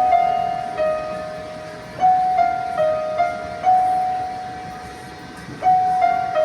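Yamaha electronic keyboard playing a slow melody, one note after another, each note starting crisply and fading away, with a pause of about two seconds in the middle.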